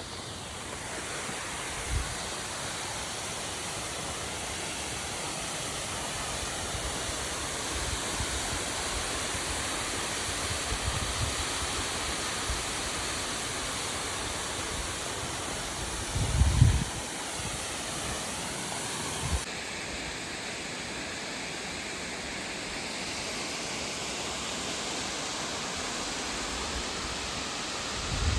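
Waterfall rushing: a steady wash of falling water, with a few low thumps on the microphone, the loudest about two-thirds of the way through.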